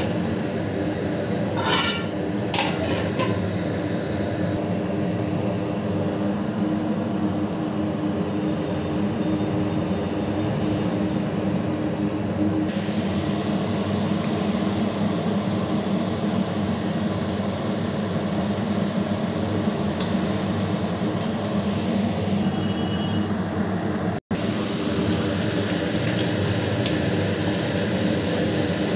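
Steady low kitchen hum of a running motor or burner, with two sharp metallic clinks of a metal pot and utensil about two seconds in and a few fainter clicks later.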